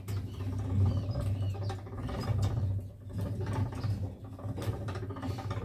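Boat cart rolling down slipway rails as a Progress-2 aluminium motorboat is lowered toward the water: a steady low rumble with short high squeaks and clicks.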